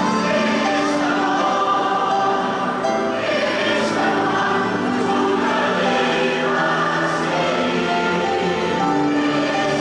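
A large mixed choir of men's and women's voices singing a gospel hymn in held chords.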